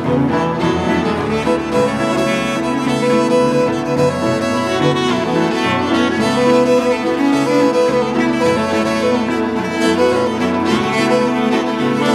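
Cello, fiddle and tenor saxophone playing a tune together in a small acoustic band, with the cello bowed.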